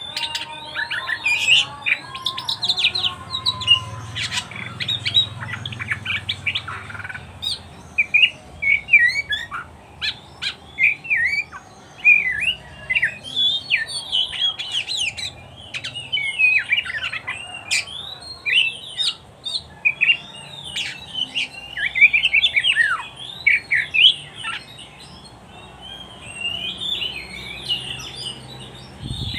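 Oriental magpie-robin (kacer) singing a long, varied song: a fast, unbroken run of short whistled notes, chirps and slurs that rise and fall in pitch, with scattered sharp clicks.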